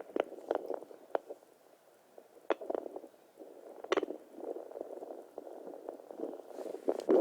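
Home fetal Doppler's speaker giving a faint swishing hiss broken by scattered, irregular clicks and pops, the sharpest about four seconds in.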